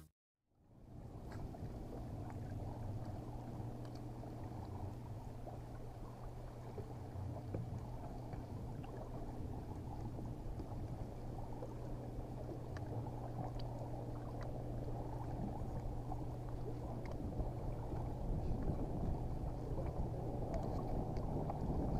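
Water lapping against the hull of a bass boat sitting on the lake, with a steady low hum underneath and a few faint ticks.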